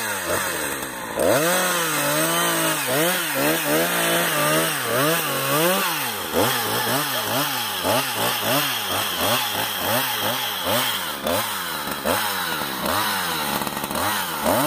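Two-stroke chainsaw cutting into the base of a small tree, its engine speeding up about a second in and then rising and falling in pitch over and over, in slow swings at first and quicker ones in the second half.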